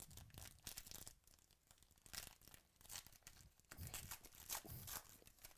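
Foil trading-card pack being torn open by hand: a faint run of crackling rips and crinkles of the foil wrapper.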